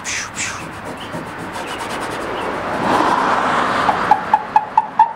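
Sponge scrubbing back and forth on the truck's side to loosen old duct-tape and sticker residue softened with Goo Gone. From about four seconds in, each stroke gives a short squeak, about four or five a second.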